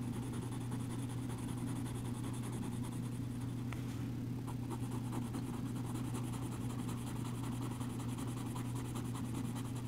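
Black coloured pencil scratching lightly on drawing-pad paper, colouring in with small circular strokes, over a steady low hum.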